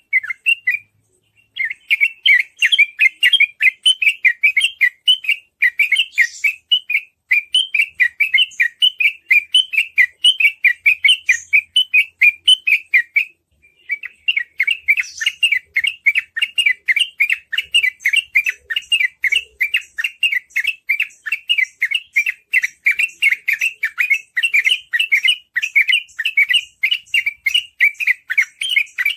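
Yellow-vented bulbul (trucukan) singing 'ropel': a fast, unbroken run of bubbly chirps at several notes a second, pausing briefly about a second in and again about halfway through.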